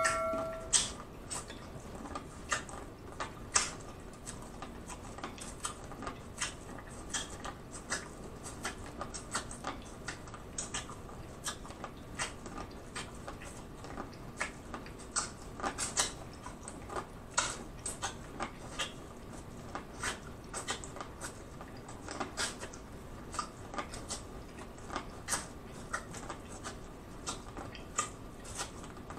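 Close-up eating of buttered corn on the cob: crisp bites and chewing come as irregular sharp clicks, one or two a second.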